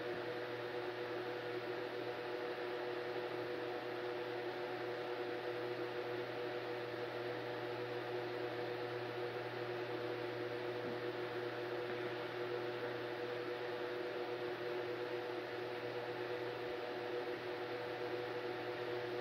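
Steady background hum of room noise: a few constant low tones over an even hiss, with no distinct events.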